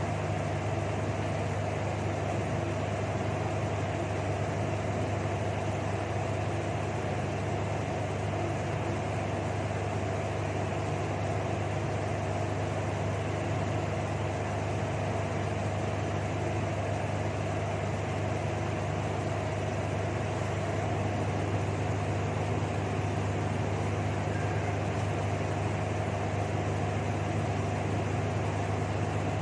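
A steady, unchanging low hum with a faint higher tone above it.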